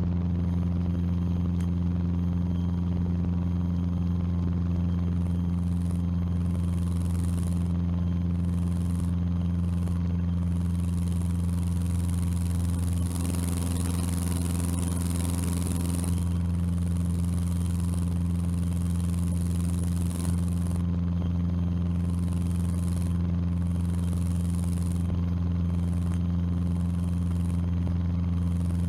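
Steady drone of a Cessna 150's four-cylinder engine and climb propeller, heard inside the cabin as the plane climbs. The pitch and level hold even throughout.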